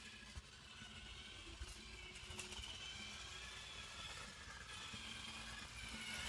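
Kyosho MK1 RC motorcycle running on a test run, its motor whining and rising and falling in pitch as its speed changes.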